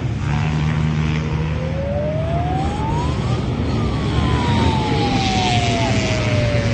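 Off-road motorbike engines running on the enduro course over a steady low hum, one engine's note rising for a couple of seconds and then falling away slowly.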